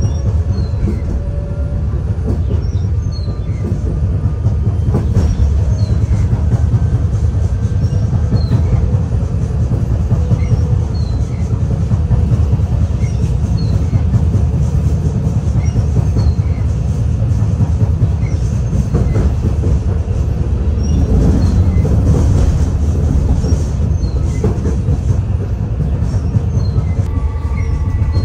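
Interior ride noise of a Fukui Railway F1000 low-floor tram running on street track: a steady rumble of wheels and running gear, with a whine that falls in pitch near the end.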